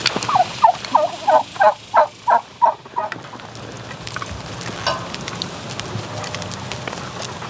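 Domestic turkey calling: a quick run of about nine short, falling calls over the first three seconds, then it stops.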